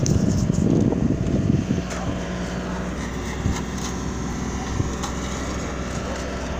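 Wind buffeting the microphone with a heavy rumble for the first second and a half, then a steady engine hum with a few sharp clicks and knocks.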